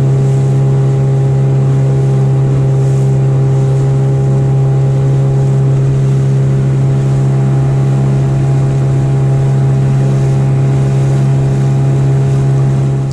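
Jon boat's outboard motor running at a steady cruising speed, a constant even-pitched hum, with water and wind rush under it.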